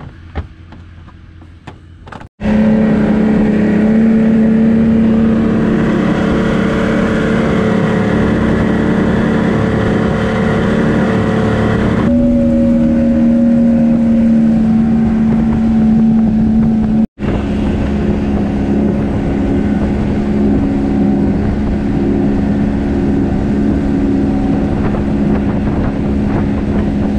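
Outboard motor of a 16-foot Dolphin skiff running steadily at cruising speed across open water. The loud, even drone starts abruptly about two seconds in and drops out for an instant about two-thirds of the way through.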